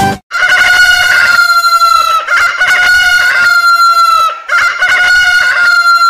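Rooster crowing: about three long crows in a row, each held at a steady pitch.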